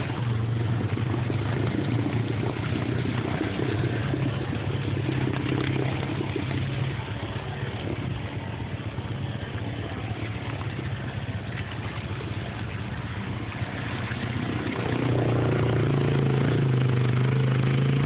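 Honda ATV engine running steadily as the four-wheeler wades through deep muddy water. It grows louder and stronger about three-quarters of the way through as the quad pushes toward shallower water.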